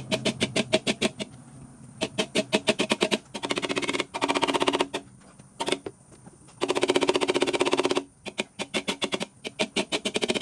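Rapid light hammer taps on a motorcycle fender, several a second in runs of one to two seconds with short pauses, the metal ringing under each run: the high spots around the dent are being tapped down with a blending hammer and knockdown in paintless dent repair.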